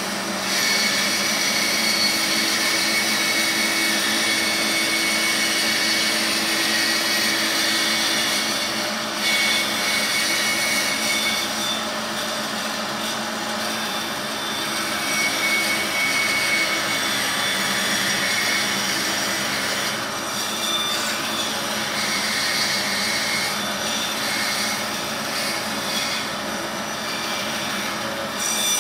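Laguna bandsaw running and cutting through a wooden workpiece along a curve, a steady machine noise with a higher cutting tone that comes and goes as the wood is fed.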